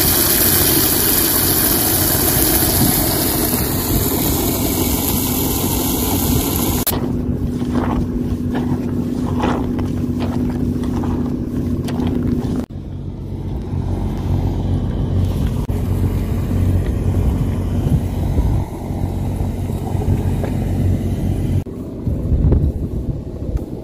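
Water spraying hard from a hose nozzle into a plastic laundry bucket of soapy water for about seven seconds. It then gives way to a low, steady machine hum.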